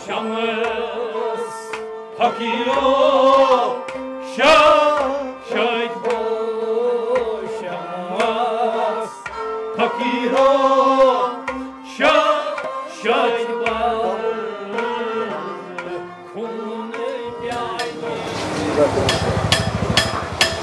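Background music: a drum beat under a melody with a wavering pitch. About three seconds before the end it gives way to street noise with many sharp clicks.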